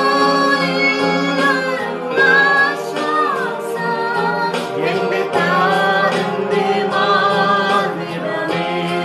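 Christian devotional song: voices singing a melody over a held instrumental note.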